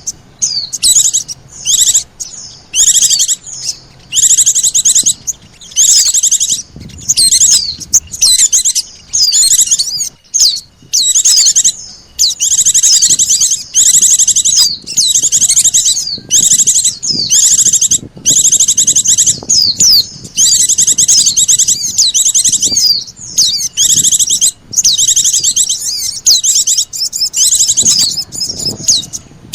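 Pikat (bird-luring) recording of pleci (white-eyes) and sogon birds: a continuous, loud, high-pitched twittering chatter in rapid back-to-back bursts, each lasting about a second, with short breaks between them.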